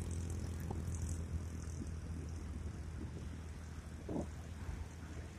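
Quad bike (ATV) engine running as it drives away across sand, a steady low drone that fades slowly.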